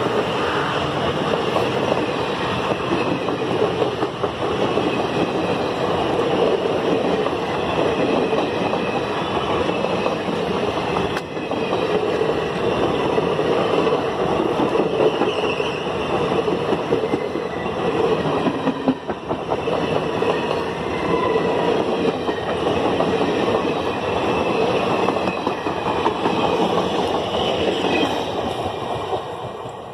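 Loaded passenger coaches rolling past close by: a steady rumble and clatter of steel wheels on the rails, dying away near the end as the rear of the train goes by.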